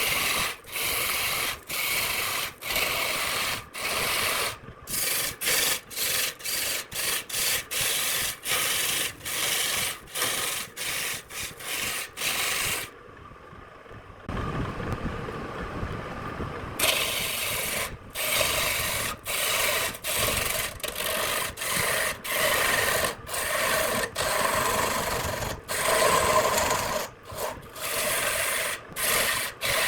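Abrasive rubbing on wood in quick repeated strokes, each broken off by a short gap, with a stretch of duller, lower noise without strokes around the middle.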